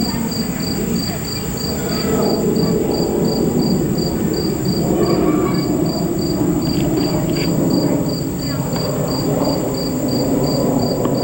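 Insects, crickets or similar, chirping in an even rhythm of about three high chirps a second over a steady high hum, beneath a louder low rushing noise.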